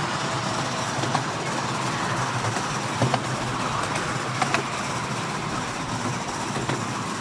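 Miniature steam locomotive, a scale replica of a Merchant Navy class engine, running on the track while hauling a long train of passenger coaches. There is a steady running noise, and a few sharp clicks come from the wheels on the rails about one, three and four and a half seconds in.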